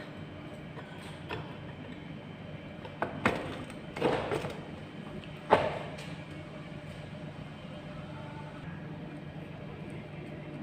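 Knocks and scraping of a petrol brush cutter's boom being fitted back onto its engine unit, a few separate handling noises with the sharpest knock about five and a half seconds in, over a steady low hum.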